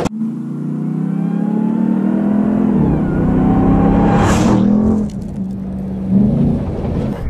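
Ram 1500 TRX's supercharged V8 accelerating hard, its pitch climbing, dipping and climbing again about three seconds in. A short burst of hiss comes about four seconds in, then the engine eases off to a lower, steadier note.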